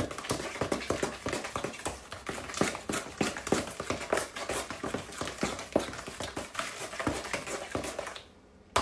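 Pie filling being stirred by hand in a mixing bowl: quick, irregular clicks and scrapes of the utensil against the bowl, several a second, stopping shortly before the end.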